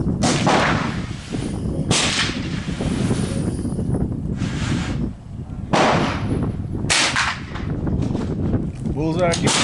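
About five rimfire rifle shots, unevenly spaced over seven seconds, each with a short echo. Heavy wind noise on the microphone runs underneath.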